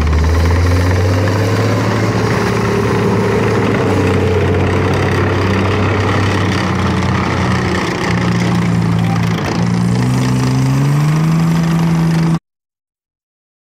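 FV180 Combat Engineer Tractor's Rolls-Royce C6TFR six-cylinder diesel engine running as the tracked vehicle drives off, its engine note climbing near the end. The sound cuts off suddenly about a second before the end.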